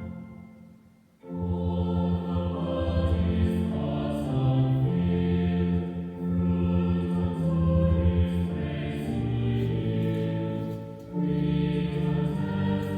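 Slow choral music: voices holding long chords that change every couple of seconds. It starts again after a short pause about a second in, and breaks off briefly near the end before the next phrase.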